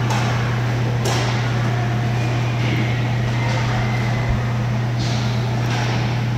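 Inline hockey play in a large, echoing rink: a few sharp clacks of sticks striking the puck and the plastic court tiles, about a second in and again around five and six seconds in, over a steady low hum.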